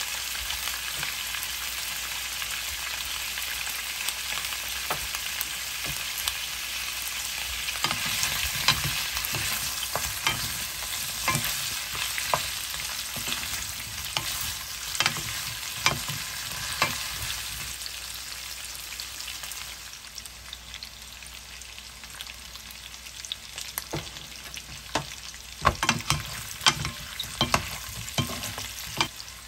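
Sliced potatoes and sausages sizzling in oil and butter in a frying pan, stirred with a wooden spatula that scrapes and knocks against the pan. The sizzle eases off in the second half, and the spatula knocks are sharpest near the end.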